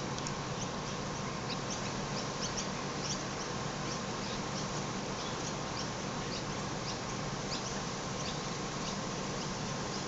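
A steady outdoor hiss with frequent short, high-pitched chirps scattered irregularly throughout, each dropping slightly in pitch.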